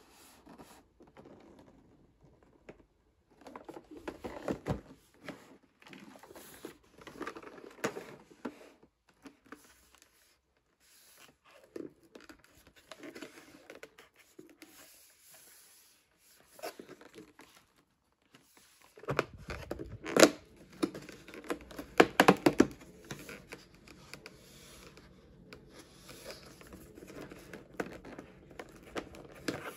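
Cardboard being handled, then scraped and torn as a perforated tear strip is pulled along a cardboard box, in irregular bouts of rustling and tearing. The loudest run of tearing and crackling comes about two-thirds of the way in.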